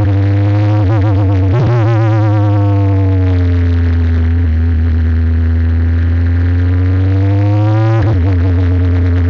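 Abarth 1.4-litre turbocharged four-cylinder engine of a Tatuus Formula 4 single-seater, heard onboard at speed. The engine note wavers, falls as the car slows into a corner in second gear, climbs slowly as it accelerates out, then drops suddenly near the end at an upshift.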